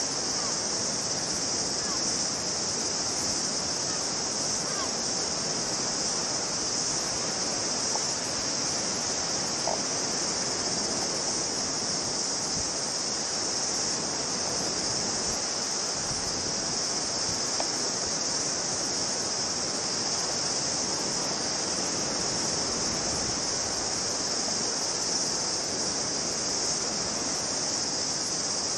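Steady outdoor noise of wind and surf, even throughout with no distinct events, under a strong steady high-pitched hiss.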